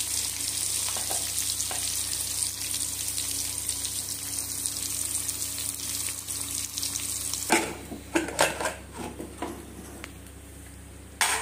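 Sliced onion and green chillies sizzling in hot oil, browning for a tadka. About seven and a half seconds in the sizzle stops and a few sharp metal knocks and clinks follow as an aluminium pressure cooker's lid is taken off, with one more knock near the end.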